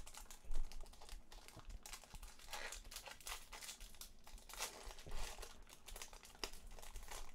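Foil wrapper of a Yu-Gi-Oh booster pack crinkling irregularly as it is torn open by hand, with one sharp click a little before the end.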